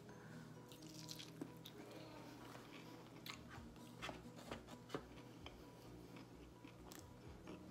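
A person quietly chewing a crispy fried chicken wing, with scattered soft crunches and wet mouth clicks.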